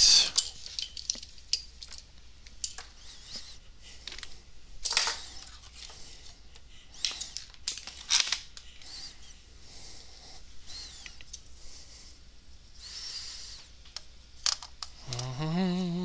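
Scattered light clicks and taps with a few short rustles from cables and small objects being handled and plugged in.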